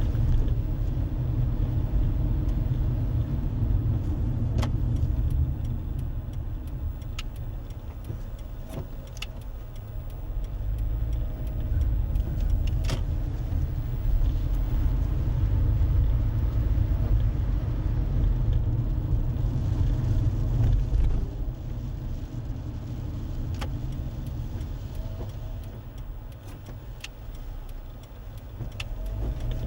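Road noise inside a moving car: a steady low rumble of tyres and engine that swells and eases with the drive, with a few faint ticks.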